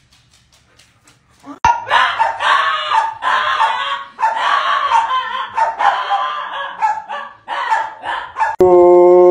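Small white fluffy dog barking and yapping in a rapid, choppy string, starting about one and a half seconds in. Near the end the barking gives way to a steady held tone.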